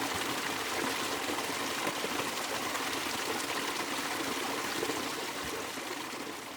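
Creek water running in a steady rush, fading out near the end.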